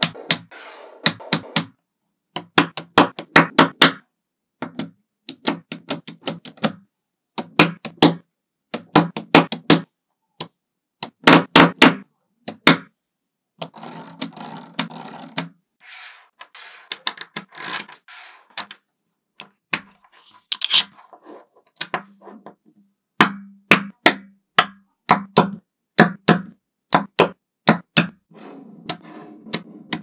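Small neodymium magnetic balls clicking and snapping together as rows and walls of them are pressed into place, in bursts of rapid sharp clicks separated by short pauses.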